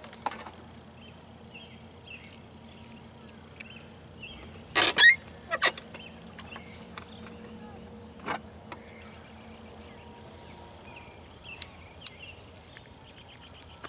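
Scattered clicks and knocks from handling a spinning rod and reel, with one louder rustling noise about five seconds in, over faint outdoor background with small chirps.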